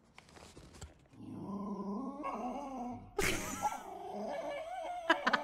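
A small dog vocalizing in long, wavering whines and grumbles that rise and fall in pitch, starting about a second in.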